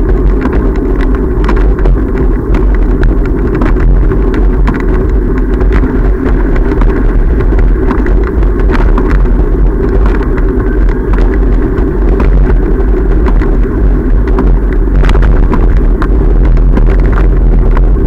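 Road traffic passing along a busy road beside a moving bicycle, under a steady heavy rumble of wind on the camera's microphone, with scattered light clicks.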